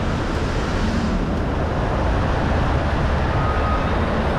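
Scania R580 truck running while its tipping trailer is raised and a full load of horse manure slides off the bed: a steady heavy rumble.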